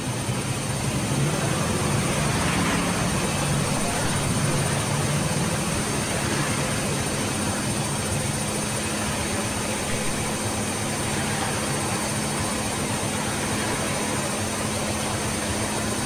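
Electrolux EWF85761 front-loading washing machine running, a steady motor hum and whir as the drum turns with water and laundry inside.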